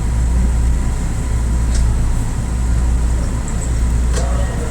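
Steady low rumble of an electric commuter train running, heard from inside the front of the car, with a couple of faint clicks.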